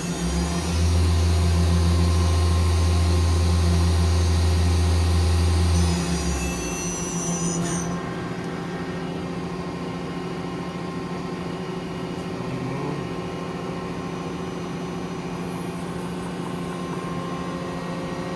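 Mori Seiki ZL150SMC CNC lathe running under power: a loud low hum with a high hiss for about six seconds, which winds down between about six and eight seconds in, leaving a steady, quieter machine hum.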